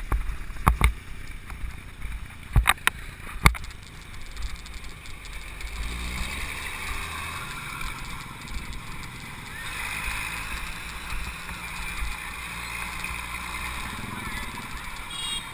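Mountain bike riding on a paved road past traffic, heard from the bike: a few sharp knocks in the first few seconds, then steady road and traffic noise.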